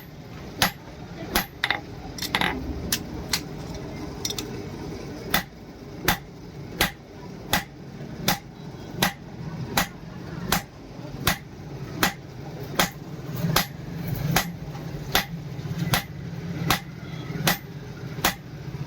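Hammer striking steel on an anvil in steady, evenly paced blows, about one every three quarters of a second, each with a short metallic ring: hand forging a truck leaf spring into a spear. A steady low hum runs underneath.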